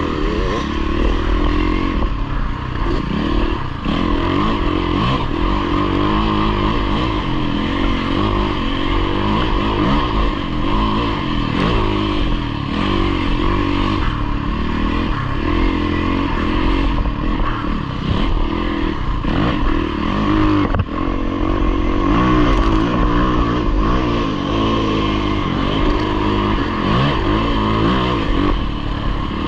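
Yamaha dirt bike engine running hard under load, its pitch rising and falling with the throttle, with brief dips in loudness about four seconds in and again about twenty-one seconds in.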